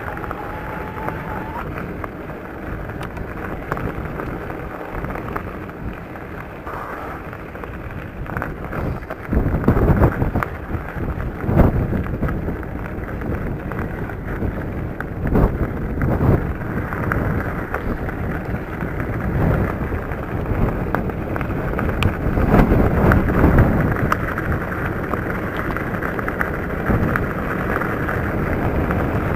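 Mountain bike riding over a gravel track: tyres crunching on loose stones and wind buffeting the microphone. Heavier jolts from bumps come about ten seconds in and again a little past twenty seconds.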